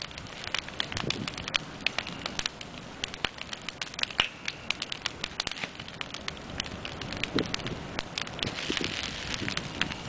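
Campfire crackling, with many irregular sharp pops and snaps.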